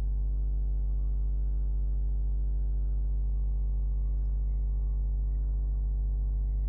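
Steady low electrical hum with a buzzy series of evenly spaced overtones, unchanging throughout.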